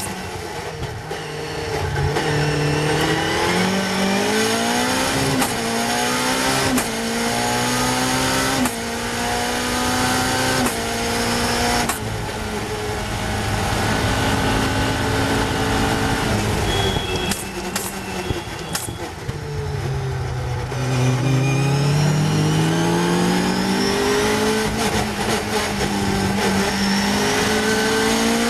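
Caterham's Cosworth 2.4-litre four-cylinder race engine, heard from the open cockpit, pulling hard at full throttle: the pitch climbs and drops back at each of several quick upshifts. Past the middle it falls away through downshifts under braking, then climbs again as the car accelerates out of the corner.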